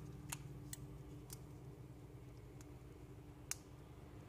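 Light clicks and taps of a Samsung Galaxy J320 smartphone being handled, its battery seated in the open case and the handset turned over. There are about six sharp clicks, the loudest about three and a half seconds in, over a faint low steady hum.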